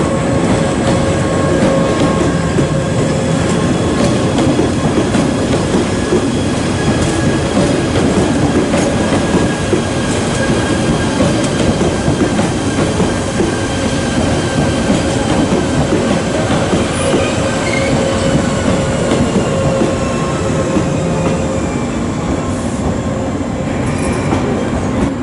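JR 381 series tilting electric train running past, its wheels rumbling and clattering over the rail joints. Faint steady squealing tones ride over the rumble, some slowly falling in pitch, and fade before the end.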